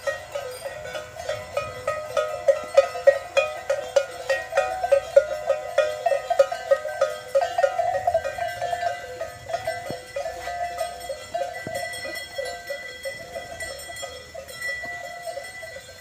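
Many cattle bells on a walking herd of native hill cattle, clanking and jingling irregularly. The clanking is loudest and densest a few seconds in and thins out later.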